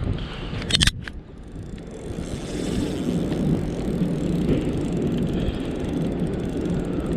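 Wind buffeting the microphone in a steady low rumble, with one sharp knock a little under a second in.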